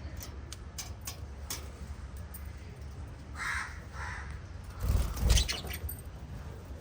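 Pet lovebirds giving short, harsh calls, amid sharp clicks and taps early on. Around five seconds in there is a loud burst with heavy thumping, louder than the calls.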